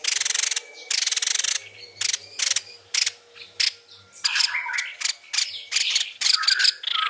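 White-rumped shama (murai batu) singing in a fast, full-voiced style. It opens with two long, harsh, rattling phrases, breaks into a quick string of short notes, and from about halfway moves into a run of clearer whistled notes.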